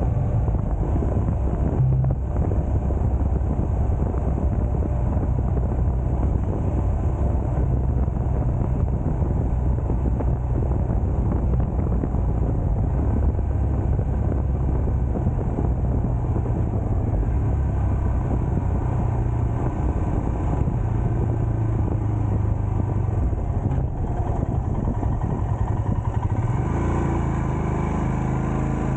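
Steady rumble of a vehicle driving on the road, engine and road noise, with no speech. About 26 s in the engine note changes and a clearer pitched hum comes through.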